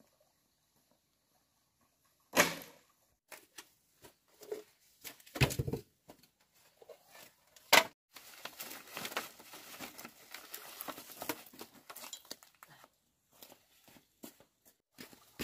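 Dry bamboo poles being handled and moved: a few separate knocks as poles are picked up and set down, then several seconds of rustling and scraping among dry bamboo and debris, with more scattered knocks.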